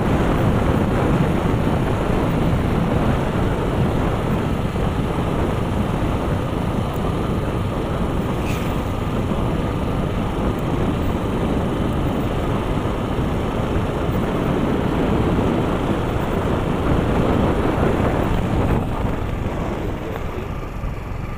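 Steady wind rush on the microphone over a motorcycle running at road speed. A single short click comes about a third of the way in, and the noise eases off near the end as the bike slows.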